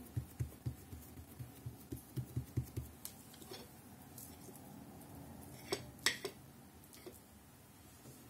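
Fingers pressing and patting a ball of soft dough flat on a wooden cutting board: a quick run of soft thumps, about four or five a second, lasting about three seconds. A few seconds later come two light clinks of a spoon against a plate.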